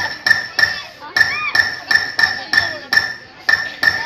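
Metal struck over and over in an even rhythm, about three strikes a second, each with a short high ring. The strikes stop near the end.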